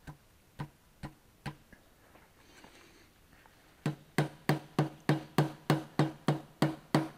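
Dead-blow hammer tapping a piston through a ring compressor down into the cylinder bore: a few light taps, a pause, then a steady run of sharper knocks about three a second. The piston and its rings are going into the bore easily.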